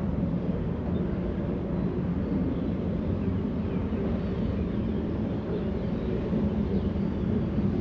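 Tour tram running steadily, a low drone from its drivetrain mixed with road rumble.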